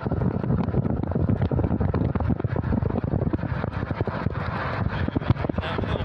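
A moving vehicle, heard from inside: a steady low road and engine rumble with many small knocks and rattles all through.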